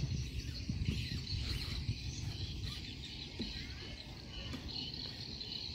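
Outdoor ambience: an uneven low rumble of wind on the microphone, loudest in the first couple of seconds, under a steady high insect buzz and scattered bird chirps.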